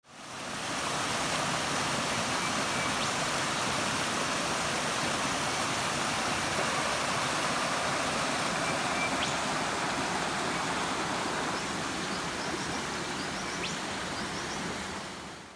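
Creek water running over rocks in small rapids: a steady rushing that fades in at the start and fades out at the end.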